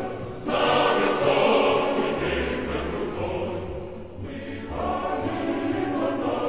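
Choir singing in long held phrases, a new phrase beginning about half a second in and another near the end.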